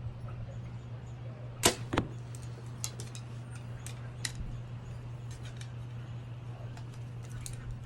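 Compound bow shot off a hinge release: a sharp crack as the string drives the arrow away, and about a third of a second later the smack of the arrow hitting the target. A few lighter ticks follow.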